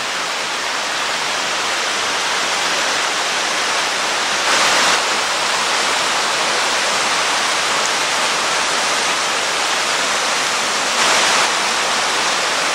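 Tall waterfall, a steady rushing of falling water that swells louder twice, briefly.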